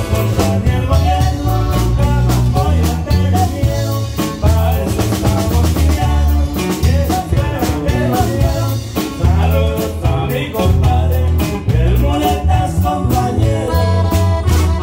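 Norteño-style band music: accordion over bass and drums with a steady beat.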